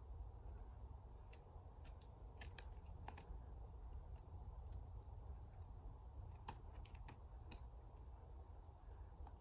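Near silence: a faint low rumble with about a dozen scattered light clicks, bunched in two short spells.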